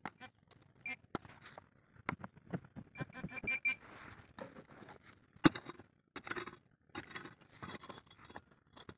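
A metal detector beeping in a quick run of short pulses about three seconds in, signalling metal in the ground, then a digging tool working into stony soil: irregular strikes and scrapes, with one sharp strike about five and a half seconds in.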